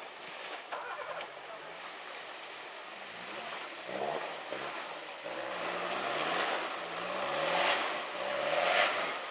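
Off-road 4x4's engine revving up and down again and again under load as it claws up out of a muddy pit, getting louder toward the end, with the tyres churning and splashing through muddy water.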